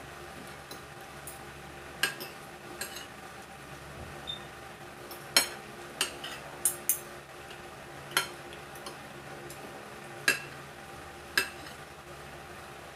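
Metal spoon and fork clinking and scraping against a plate of rice during eating: a scatter of about nine short, sharp clinks, several close together near the middle, over a steady faint hum.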